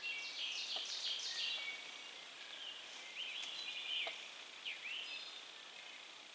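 Several songbirds singing: a run of high, falling chirps in the first second and a half, then trills and short upswept notes a few seconds later.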